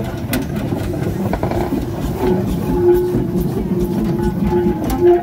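1917 Aveling & Porter geared steam locomotive running slowly past hauling loaded wagons, its wheels giving a few sharp clicks over the rail joints.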